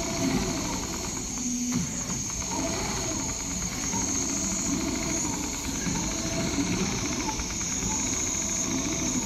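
Richpeace large-format CNC pattern sewing machine stitching leather: the needle running in a fast, steady chatter over a high steady whine and a low mechanical rumble as the head traces the pattern.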